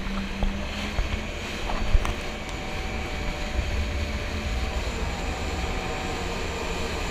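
Jet ski engine running at speed with a steady drone, under heavy wind buffeting and rushing water. A sharp knock about two seconds in.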